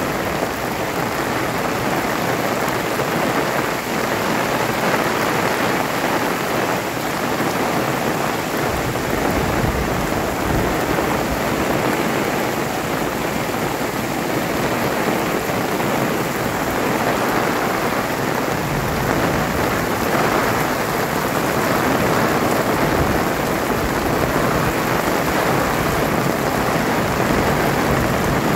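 Heavy rain pouring down steadily in a dense, even hiss, with a low rumble swelling under it now and then.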